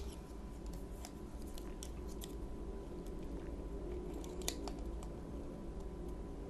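Faint scattered clicks and taps of small vinyl figures being handled, one a little louder about four and a half seconds in, over a steady low hum.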